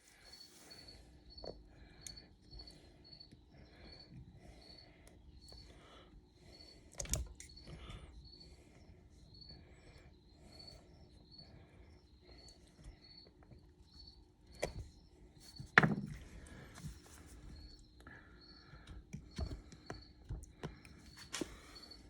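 Scattered metal clicks and knocks of a screwdriver worked around a Girling brake caliper piston while its rubber dust boot is eased over it, the loudest knock about sixteen seconds in. Behind them a cricket chirps steadily about twice a second.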